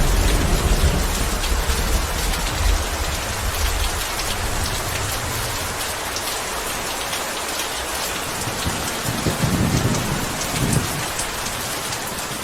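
Steady heavy rain with thunder: a low rumble fading over the first few seconds, and another rumble rolling in about nine seconds in and dying away by eleven.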